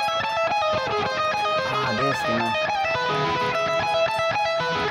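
Ibanez electric guitar playing a fast single-note solo passage, a rapid run of changing notes.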